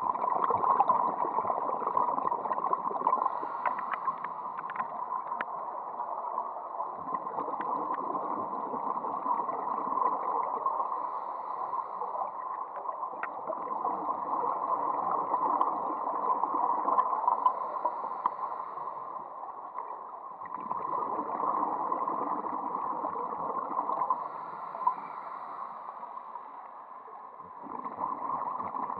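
Muffled underwater water noise picked up by a camera in a waterproof housing: a steady rushing gurgle that swells and eases every few seconds, with a few faint clicks.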